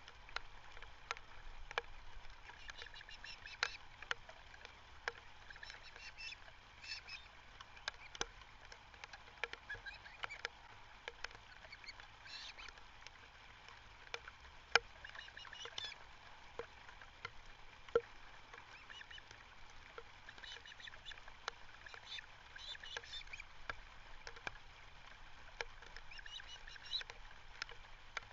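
Birds calling outdoors in short bursts of repeated high notes every few seconds, with scattered sharp clicks and a faint steady hiss.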